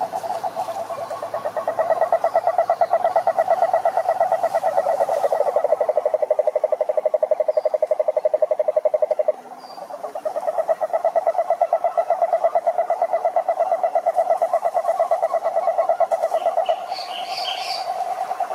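A frog or toad giving long, rapid pulsing trills that break off once about nine seconds in and then resume. Near the end a few short, higher-pitched calls are heard.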